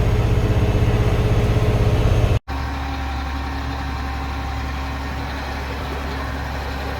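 Grain truck engine running, heard from inside the cab, with a low hum and a fast even pulse. About two and a half seconds in, the sound cuts off abruptly to a different, quieter and steadier low engine hum.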